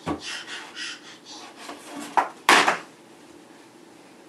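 Children's books falling from a wall shelf and landing with thuds on a hardwood floor, a few separate knocks with the loudest about two and a half seconds in.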